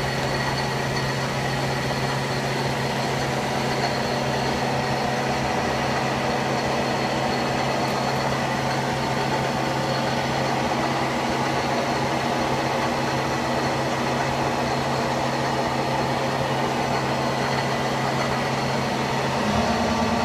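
Köpfer 143 CNC gear hobbing machine running with a steady hum and a high whine; near the end the hum steps up in pitch and gets a little louder.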